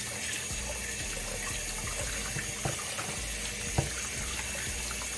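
Kitchen tap running into a glass bowl in a stainless steel sink while hands swish raw shrimp around in the water. A few small knocks, the sharpest about four seconds in.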